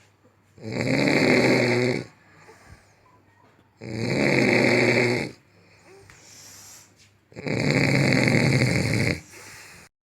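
A woman snoring loudly in deep sleep: three long, rough snores, each about a second and a half, coming about every three and a half seconds.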